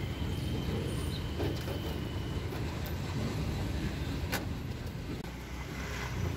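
Steady low rumble of street traffic, with a single sharp click about four seconds in.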